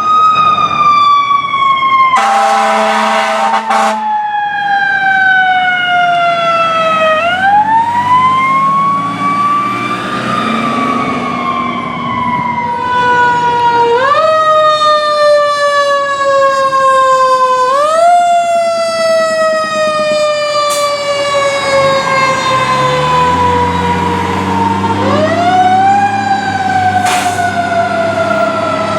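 Fire engine siren, repeatedly rising quickly in pitch and then sliding slowly down. A blast of the truck's air horn sounds about two seconds in, lasting about two seconds.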